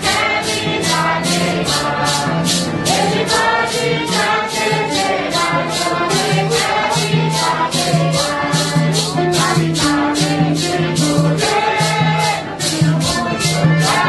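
A group of voices singing a Santo Daime hymn together, with maracas shaken in a steady, quick rhythm and low instrument notes underneath.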